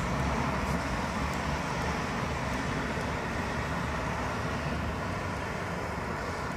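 Steady rushing noise with a low rumble underneath and no distinct events.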